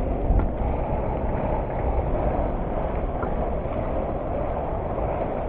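Steady low rumbling noise, with a few faint clicks about half a second in, near the middle and past the halfway point.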